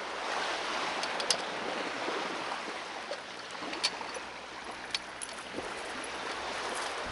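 Steady rush of wind and lapping sea water, with a few sharp clicks as a spear gun is handled while its rubber band is pulled back for loading.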